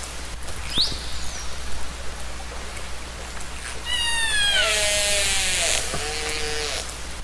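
Killer whale (orca) calls in an underwater recording: a short rising whistle about a second in, then around four seconds a falling call with several overtones followed by lower, held calls. A steady hiss and low hum run underneath.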